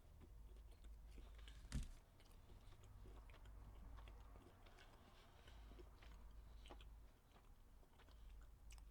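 Faint chewing of a mouthful of cheeseburger, with soft wet mouth clicks and one slightly louder click about two seconds in.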